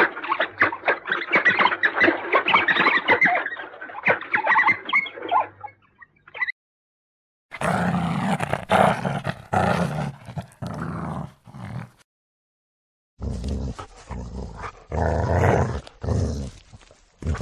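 African wild dog whining: a fast run of high-pitched squeaks and whines for about six seconds. Then, after a short silence, come two stretches of lower, rougher calls in separate bursts, with a gap between them.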